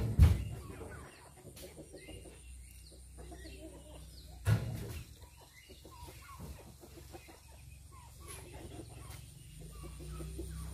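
Chickens clucking in short scattered calls. Two heavy thuds stand out as the loudest sounds, one right at the start and one about four and a half seconds in.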